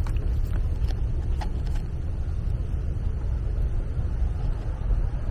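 Steady low rumble, with a few light clicks from wire cutters being handled at the wires in the first two seconds.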